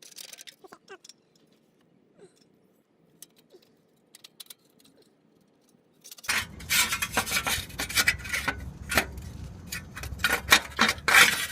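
Thin metal clinking and rattling as a rusted exhaust heat shield is bent and worked loose by hand. There are a few faint ticks at first, then from about halfway in a much louder run of sharp metallic clinks over a low hum.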